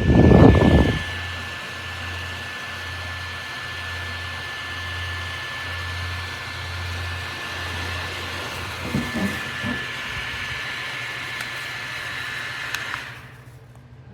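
Bladeless neck fan running with a steady whir and a thin high whine, cutting off suddenly about a second before the end. A loud low rumble sounds in the first second.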